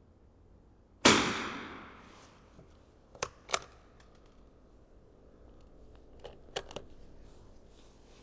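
A single .22 LR rifle shot about a second in, ringing out for about a second, followed by a pair of sharp clicks and then a few fainter clicks as the rifle is handled between shots.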